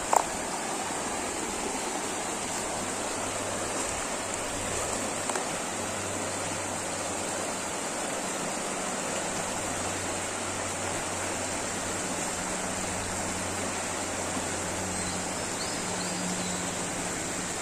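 A river flowing: a steady rush of water, with a brief click just after the start.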